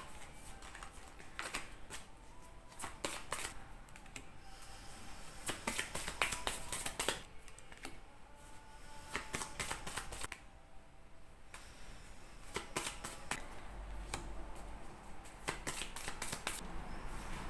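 Lenormand cards being handled and laid down one by one on a table: a run of soft, irregular card flicks, snaps and slides.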